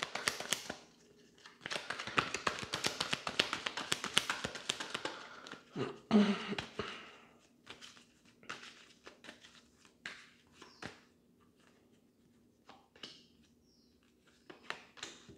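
Tarot deck shuffled by hand, a rapid run of card flicks for about five seconds. A thump follows about six seconds in, then scattered taps and slides as cards are drawn and laid down.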